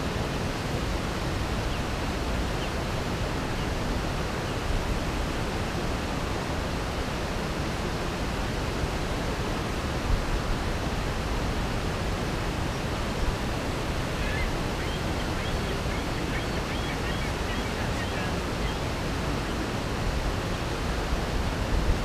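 Steady, even rushing noise of outdoor ambience, with a few faint high chirps about two-thirds of the way through.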